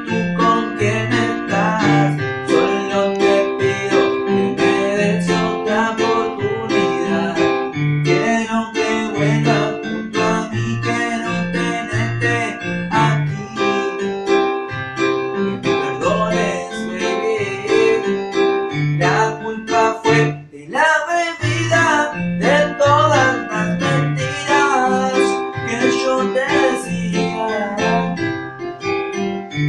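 Electronic keyboard playing a song with a steady rhythmic bass line under sustained chords, with a man singing over it in several stretches.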